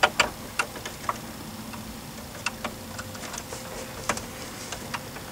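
Irregular light clicks and ticks, about eight of them, as a 7 mm mounting bolt is fitted and turned in at the side of the car stereo.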